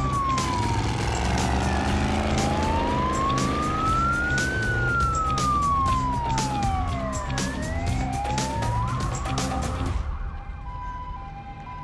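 Police siren wailing in slow rising and falling sweeps over music with a steady drum beat. Both stop about ten seconds in.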